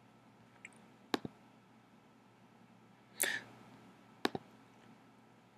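Computer mouse clicking: two quick double clicks, about a second in and again about three seconds later, and a single click near the end. A short hiss comes between the double clicks, over faint room tone.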